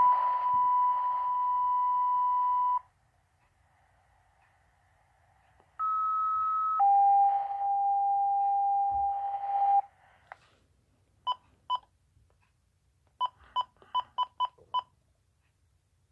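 Fire-department two-tone pager alerts coming through a handheld scanner's speaker: twice, a higher steady tone of about a second followed by a lower steady tone of about three seconds, with radio hiss behind them, the second alert ending on a lower tone than the first. Later come short electronic beeps, two and then a quick run of six.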